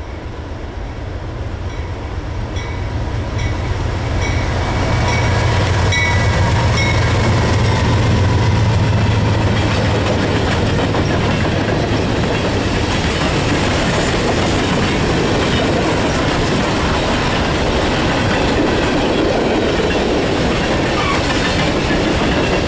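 Norfolk Southern freight train passing close by. The diesel locomotives, a GE C40-9W and an ES40DC, grow louder over the first few seconds and hum low until about halfway through. After that the hopper cars roll past with steady wheel-on-rail noise and clickety-clack.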